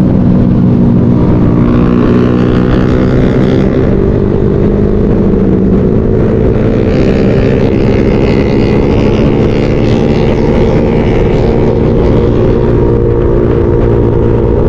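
Motorcycle engine running steadily at a fairly constant pitch while riding, heard from the rider's own bike, with the tone shifting slightly about two seconds in.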